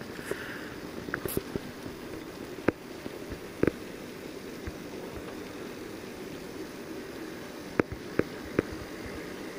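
Z scale model train of diesel locomotives and tank cars running on its track: a steady low whir, with a handful of sharp clicks, a couple about three seconds in and three more near the end.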